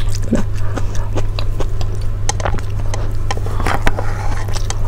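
Close-miked eating sounds: wet chewing, lip smacks and small mouth clicks at an irregular pace while eating soft rice porridge with kimchi, over a steady low hum.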